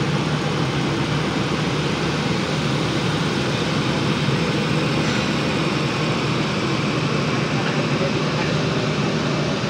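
Pakistan Railways passenger coaches rolling slowly past as the train pulls out: a steady rumble of wheels on the rails with a constant low hum.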